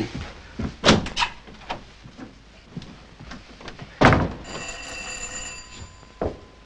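A few sharp knocks, then a loud thump about four seconds in, followed at once by a bell ringing steadily for a little over a second, the way a doorbell does; a short click comes near the end.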